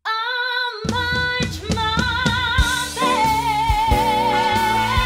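A woman belts a held note with vibrato, alone at first. About a second in, a band of saxophones, bass and drums crashes in with punchy hits under her. About three seconds in she moves to a higher held note with wide vibrato over sustained band chords.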